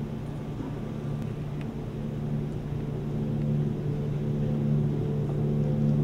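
Steady drone of a car engine running, with a low rumble beneath; it starts suddenly and slowly grows louder.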